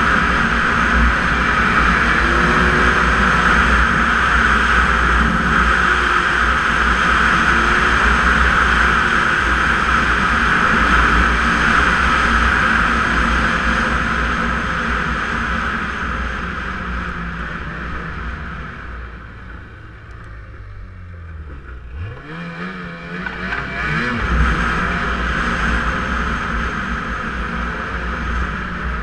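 Snowmobile running steadily at speed. About twenty seconds in it eases off to a much quieter, low engine note, then the engine revs up in a rising pitch and it picks up speed again.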